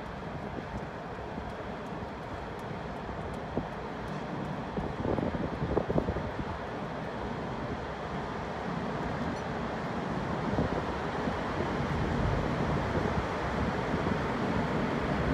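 Steady rumble of traffic on the Sydney Harbour Bridge, with wind on the microphone, growing slowly louder toward the end.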